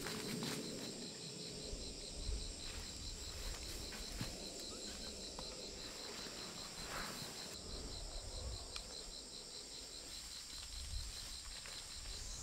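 Steady chorus of forest insects: a high, evenly pulsing trill with a higher steady drone above it, under a low rumble.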